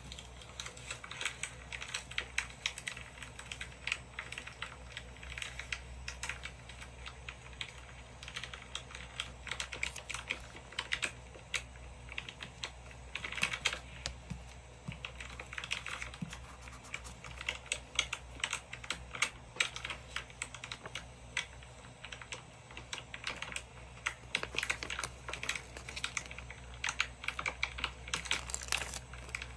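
Paper stickers and cut-outs rustling as they are handled and pressed onto a journal page, with quick, irregular light clicks and taps from metal tweezers and long acrylic nails on the paper.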